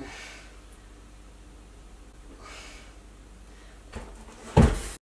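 Faint room tone with soft rustling of a blanket, then a single loud thump about four and a half seconds in as a person gets down off a kitchen counter onto the floor; the sound cuts off suddenly just after.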